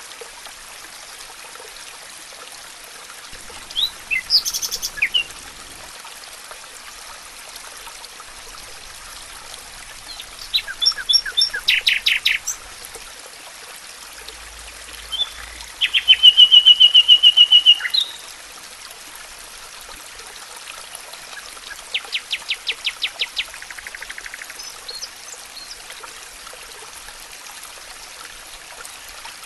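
Songbirds singing: several separate phrases of quick repeated high notes, the loudest a rapid even trill about halfway through, over a steady background hiss.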